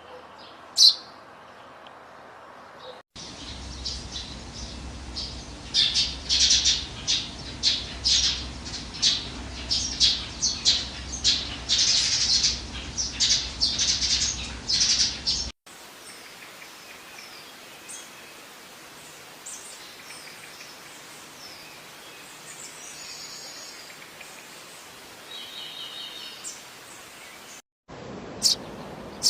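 Sparrows chirping in a string of separate recordings: a single chirp, then a long dense run of rapid, loud chirps, then a quieter stretch with scattered faint chirps, and a few sharp chirps near the end.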